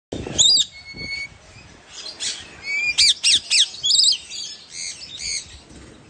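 Lorikeets giving shrill squawks and chirps: a sharp call near the start, then a quick run of high, falling chirps about halfway through, and softer calls after that.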